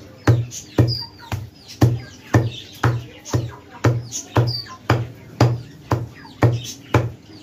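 Heavy steel cleaver chopping beef into coarse mince on a wooden tree-trunk chopping block, in steady strokes about two a second, each a thud. Small birds chirp in the background between the strokes.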